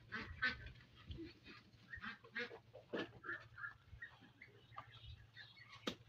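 Domestic ducks quacking in short, scattered calls, with a sharp click just before the end.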